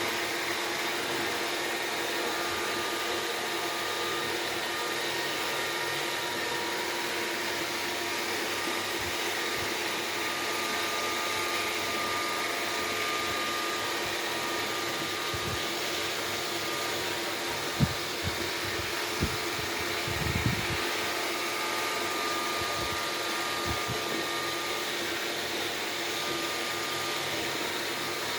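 Vacuum cleaner running steadily, a constant motor whine and airflow hiss, with a few dull low knocks past the middle.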